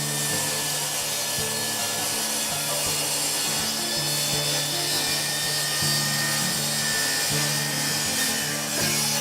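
Background music with a bass line that changes note about once a second, over a steady rasping noise of wood being worked.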